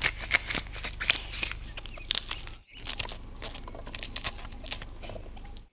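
Corn kernels cracking and snapping off an ear of white corn in a quick, irregular run of sharp crackles: a knife blade prying at the kernel rows, then thumbs pushing the kernels loose. The crackling breaks off briefly about halfway through.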